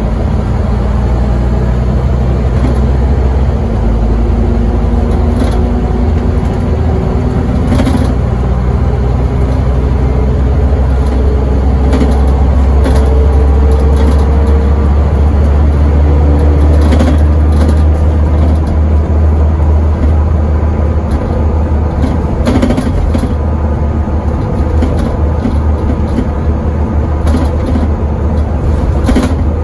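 Scania N270UD double-decker bus's nine-litre five-cylinder diesel engine and driveline, heard from inside on the upper deck. It drones low and steady while the bus runs at speed, with a whine that rises slowly in pitch over the first half and then holds steady. Road noise runs underneath, with a few brief knocks and rattles from the body.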